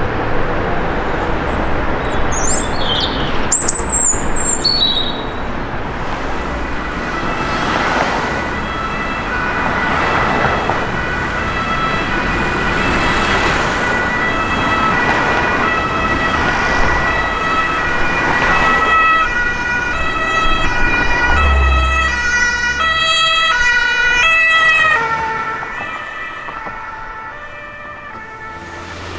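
Emergency vehicle's two-tone siren (German Martinshorn) alternating between two pitches over engine and traffic noise. The siren falls in pitch and fades about twenty-five seconds in as the vehicle passes and moves away.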